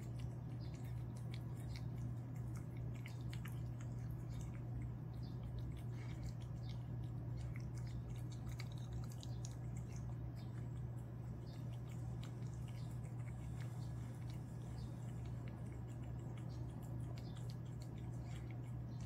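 A cat eating wet food from a ceramic bowl: many small, irregular wet licking and chewing clicks over a steady low hum.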